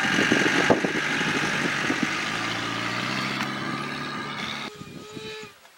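Lions growling and snarling over a buffalo kill: a low, rough rumble that settles into a steady drone about two seconds in and drops away near the end.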